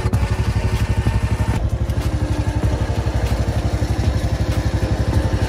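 Off-road buggy (UTV) engine idling steadily, with an even, rapid pulse.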